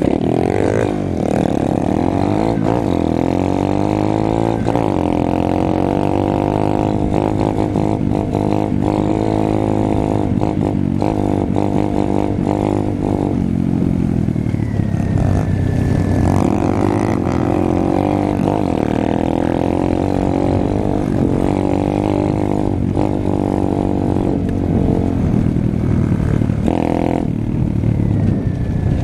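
Apollo RFZ pit bike engine running close to the rider, its pitch rising and falling again and again as the throttle is opened and closed while riding over rough grass.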